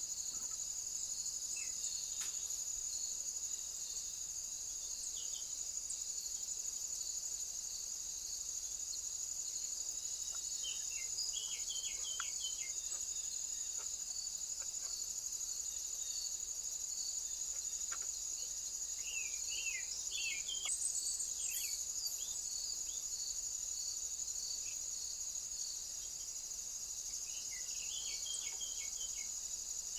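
Continuous high-pitched insect trilling. Clusters of short bird chirps come in three groups: about a third of the way in, about two-thirds in, and near the end.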